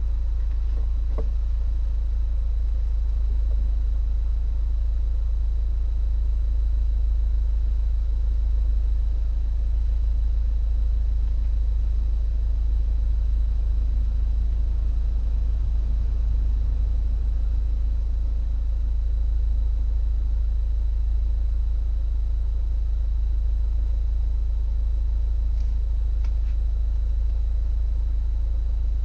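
BMW Z4 E85 2.0i's four-cylinder engine and car noise, a steady deep rumble recorded through a mobile phone's microphone.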